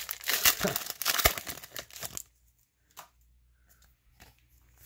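Foil wrapper of a Triple Play baseball card pack being torn open and crinkled for about two seconds. The cards are then slid out and handled with a few faint rustles.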